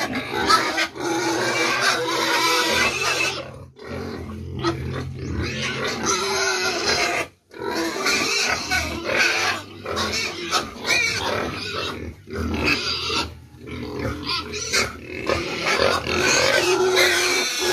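A pen of young hybrid fattening pigs squealing and grunting continuously, with a few brief breaks: hungry pigs clamouring for feed.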